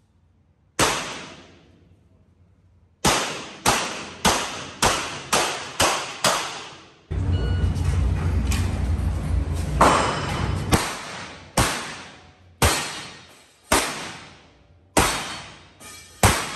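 Revolver shots echoing in an indoor range: a single shot, then a rapid string about half a second apart, then slower shots a second or so apart. For about four seconds in the middle there is a dense rumbling noise.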